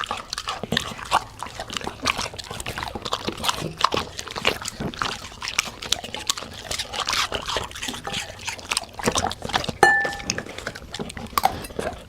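A Labrador and a golden retriever lapping and slurping water, a busy, irregular run of wet clicks and splashes, with one short high squeak about ten seconds in.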